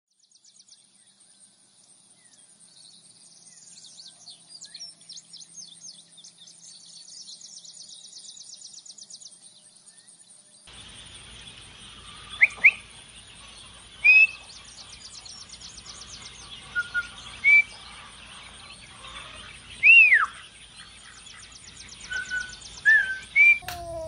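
Ducklings peeping: a string of short, loud, high whistled peeps, some sliding up and some sliding down, over a steady low rushing noise. For about the first ten seconds there is only faint, fast high-pitched trilling.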